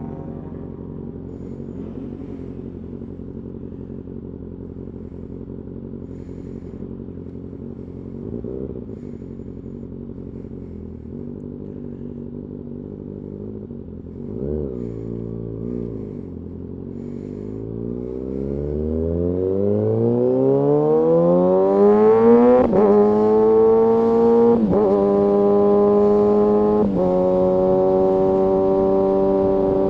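Kawasaki ZX-6R inline-four sportbike engine running at a low, steady pitch with two short throttle blips. About halfway through it revs up in one long rising pull, then changes gear three times: each shift is a brief dip before the louder, higher note holds steady.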